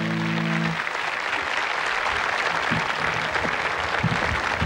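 A large audience applauding. A held chord from the band stops under a second in, leaving only the applause.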